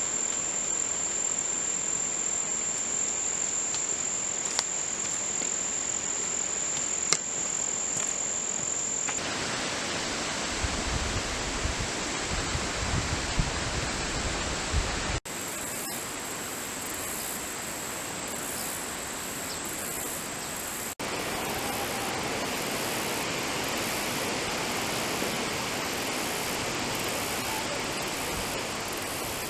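Insects giving a steady, high-pitched, unbroken trill over an even outdoor hiss. The hiss grows louder about nine seconds in, and the sound drops out abruptly twice.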